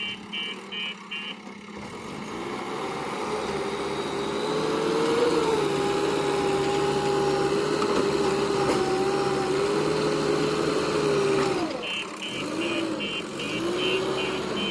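Backhoe loader's diesel engine revving up and holding high under load for several seconds, then dropping back. A reversing alarm beeps steadily at the start and again near the end.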